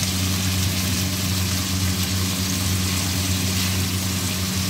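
Onions, tomatoes and green chillies frying in ghee in an aluminium pan, an even steady sizzle over a low steady hum.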